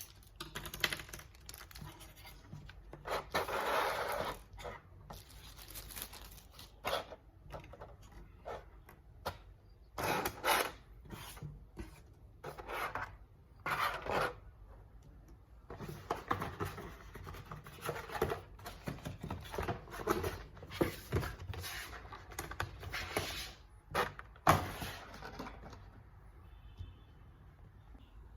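Typing on a mechanical keyboard with a brass plate and milky yellow switches: keys clacking in irregular bursts with short pauses between, dying down near the end.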